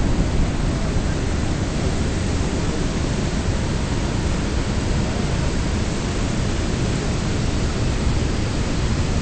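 Steady, loud rushing noise with no distinct engine note: wind buffeting the microphone and water rushing past a small boat under way on a river.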